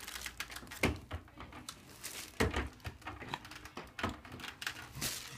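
A few scattered soft knocks and rustles, about four, the strongest about two and a half seconds in: handling noise as a baby is moved about on a paper-covered examination table.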